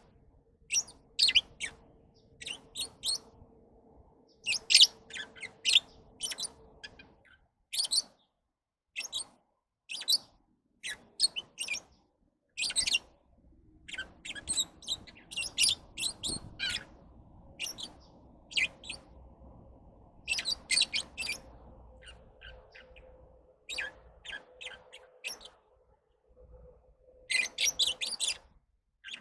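Lovebirds chirping: short, high-pitched chirps in quick clusters with brief pauses between them.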